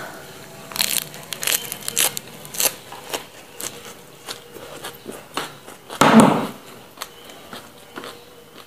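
Crunching and chewing of raw lettuce leaves, a run of crisp crackles densest in the first few seconds, with a louder short burst about six seconds in.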